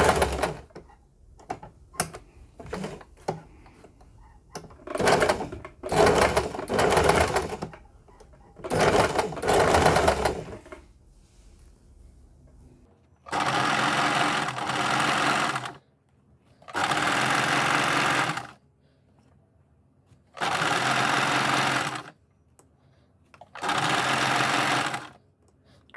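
Electric home sewing machine stitching in separate runs with pauses between them. The runs are short and uneven at first, then settle into four even runs of about two seconds each in the second half.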